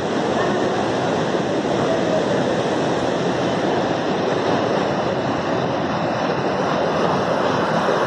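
Steady rush of a mountain river's water running over rocks and boulders.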